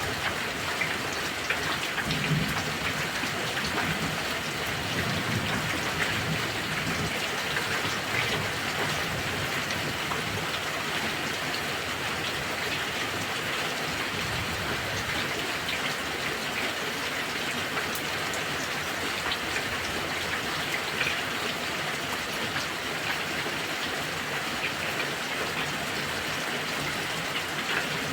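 Heavy rain falling steadily in a thunderstorm, a dense even patter with some sharper drop hits. Low thunder rumbles faintly through the first several seconds.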